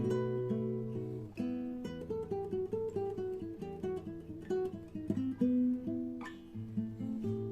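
Acoustic guitar playing a melody of single plucked notes over held bass notes, with some strummed chords.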